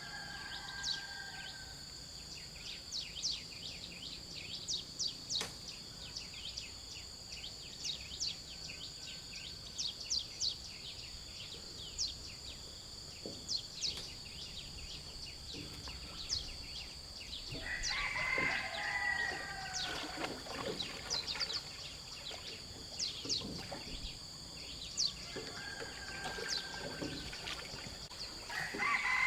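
Outdoor rural ambience: a steady high insect drone with many short bird chirps over it. A rooster crows about two-thirds of the way through and again near the end.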